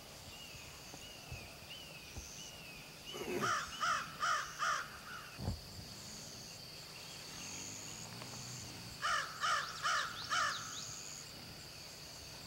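A crow cawing in two runs of about five caws each, several seconds apart, over a steady high insect drone. A single low thump comes between the two runs.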